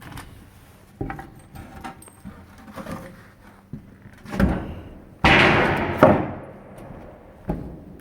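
A series of knocks and clunks, with a loud rushing burst that starts suddenly about five seconds in and fades away over a second or so.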